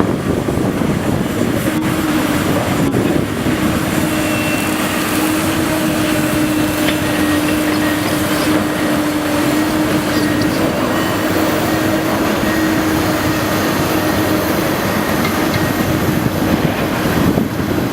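Cat 385BL excavator working: its diesel engine runs under load with a steady whine held throughout as it digs.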